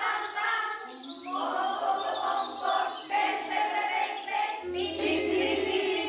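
Several children's voices singing together in held notes that change pitch every second or so.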